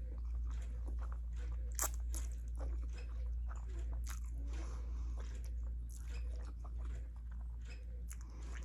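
Close-miked chewing of ramen noodles, with irregular wet smacks and crunchy mouth clicks, over a steady low hum.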